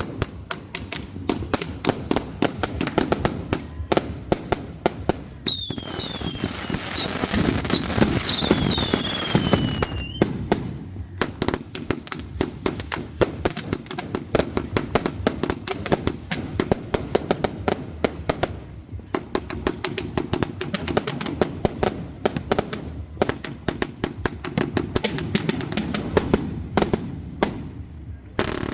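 New Year fireworks and firecrackers going off in a dense, rapid string of pops and bangs. Partway through, several whistling fireworks are heard, each falling in pitch.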